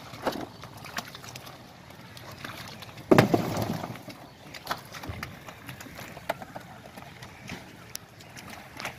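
Water sloshing and splashing in blue plastic drums as they are handled and lifted, with scattered knocks and one louder splash about three seconds in.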